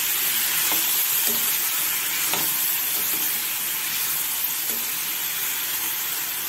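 Brinjal (eggplant) chunks frying in hot oil in a kadai with a steady sizzle, stirred with a steel ladle that scrapes against the pan now and then.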